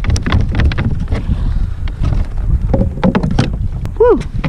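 Wind buffeting the microphone and water lapping against a plastic kayak's hull, with scattered clicks and knocks from gear and the freshly landed king mackerel being handled on the deck. A brief falling vocal sound comes near the end.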